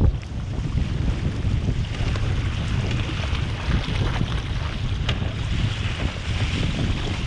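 Strong wind buffeting the microphone, over water rushing and splashing along the hull of a sailing canoe moving fast through choppy water.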